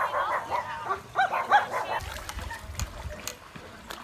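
A dog yelping in a quick series of short, high calls for about the first two seconds, followed by a low rumble on the microphone.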